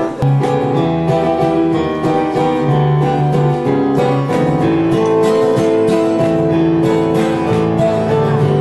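Music: an acoustic guitar strumming chords, with held notes ringing under the strokes.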